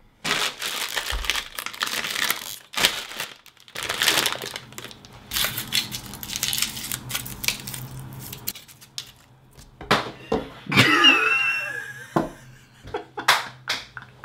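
Wrapper of a sugar-free Reese's miniature peanut butter cup crinkling and tearing as it is unwrapped by hand: a run of irregular crackles over the first eight seconds or so, then a few scattered crinkles near the end.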